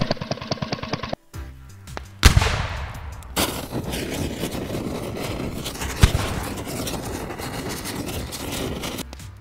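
Cartoon sound effects: a fast mechanical rattle stops about a second in, a loud bang follows a second later, then a sustained rushing, crackling fire sound runs on with another thump around six seconds in, over light background music.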